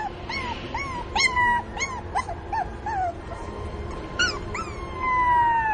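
Puppy whining and crying for its mother: a quick run of short, high cries, about two a second, a brief pause, then a long falling whine near the end.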